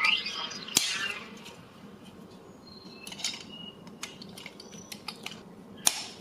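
Small plastic toy pieces clicking and knocking as they are handled, with two sharper clicks, one about a second in and one near the end.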